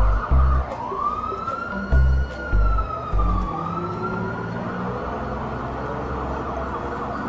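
Police siren giving one slow rising and falling wail from about a second in, over cartoon background music whose pulsing bass notes stop about halfway through.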